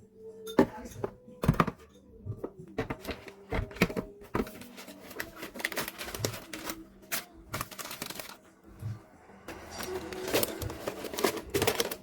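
Irregular clicks, taps and crinkles of snack packages and containers being handled and set down while a refrigerator is stocked.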